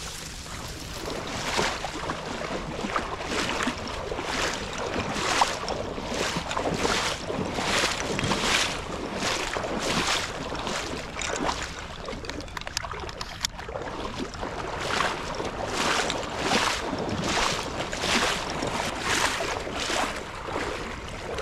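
Footsteps wading through shallow flood water: a rhythmic swish and slosh at each stride, about one a second, with a short lull midway.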